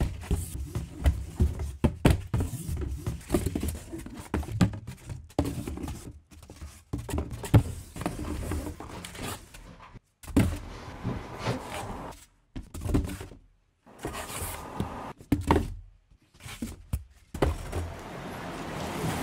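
A dense run of knocks and thuds over a low rumble, cut off abruptly to complete silence several times.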